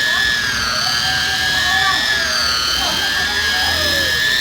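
High-speed electric buffer running, a steady high-pitched motor whine whose pitch dips and wavers slightly as the pad is worked over the car's paint.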